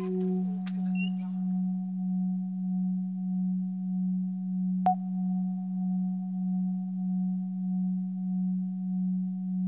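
Steady electronic drone of pure, sine-like tones: a low hum-like tone that swells and fades about one and a half times a second under a fainter, higher steady tone. A few faint high chirps sound in the first second or two, and a single sharp click about five seconds in.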